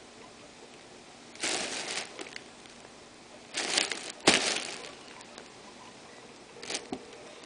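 Clear plastic bag stuffed with crumpled wrapping paper crinkling in four short bursts, the loudest and sharpest about four seconds in.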